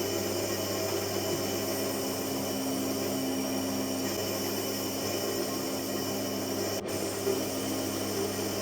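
Wood lathe running with a steady motor hum while a tool works the spinning maple, a continuous scraping sound, with a brief break about seven seconds in.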